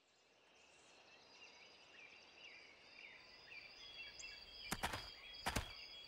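Forest ambience fading in: small birds chirping and a steady high thin whine, with two brief louder noises just under a second apart near the end.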